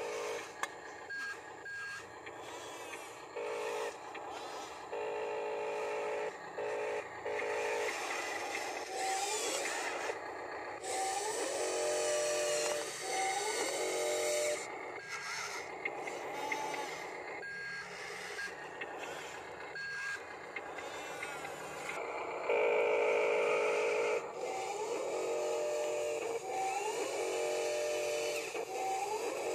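Radio-controlled Huina toy wheel loader and bulldozer working: small electric motors whining up and down in pitch as they drive and move the bucket, over the models' buzzy electronic engine sound effect that cuts in and out, with a few short electronic beeps.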